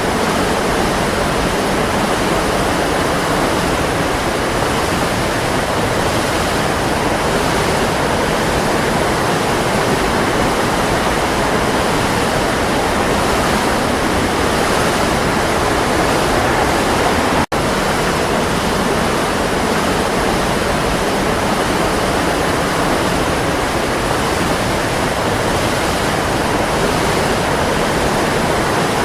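Waterfall: falling water as a steady, even rush, broken once by a momentary dropout a little over halfway through.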